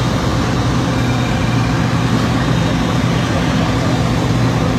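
Fire apparatus engines running steadily at the fireground, a constant low drone with no change in level.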